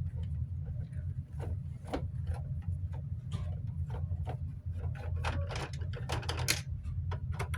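Small screwdriver clicking and scraping against screws in a plastic fan housing as the screws are worked out, in quick irregular clicks over a steady low hum.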